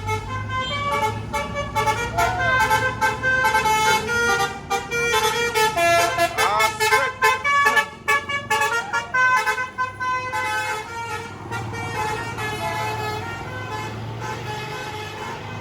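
A tour bus's multi-tone basuri (telolet) horn playing a long melody of stepped notes with a few sliding swoops, over a low steady hum. The tune grows fainter after about ten seconds.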